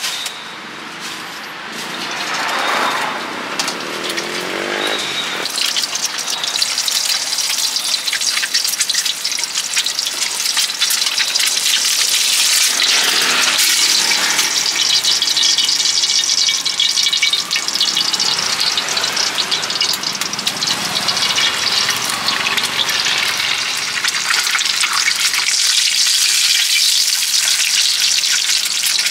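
An egg frying in hot oil in a blackened wok: a dense, steady crackling sizzle that swells up over the first few seconds.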